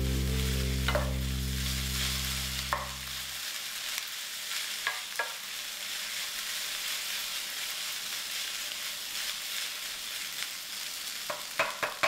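Kimchi fried rice sizzling in a hot pan while it is stirred and turned with a wooden spatula, the spatula knocking against the pan now and then, several times in quick succession near the end. Low background music notes stop about three and a half seconds in.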